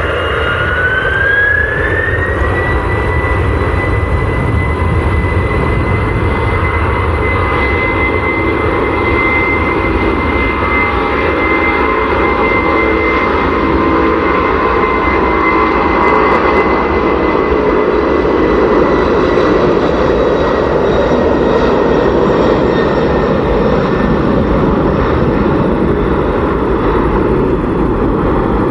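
Boeing 747's four jet engines at takeoff power: a whine rises in pitch over the first two seconds as the engines spool up, then holds steady over loud, continuous engine noise during the takeoff run.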